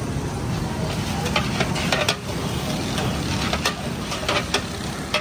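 A ladle stirring and scraping food in a cooking pot over sizzling, with sharp clinks against the pot at irregular moments.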